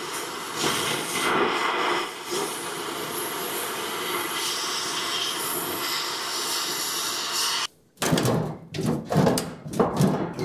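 Oxy-fuel cutting torch hissing steadily as it burns through a stripped running-board bolt. About eight seconds in the hiss cuts off suddenly, followed by a run of short knocks and clatter.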